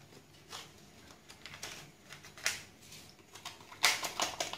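Crinkling and rustling of a small flan-powder sachet as it is handled and emptied over a bowl: a few faint scattered clicks, then a quick run of crackly rustles near the end.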